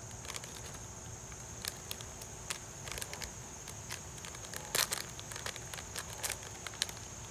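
Plastic toy packaging crinkling and tearing as a mystery-box item is opened, heard as scattered sharp crackles, the loudest about five seconds in, over a steady high whine.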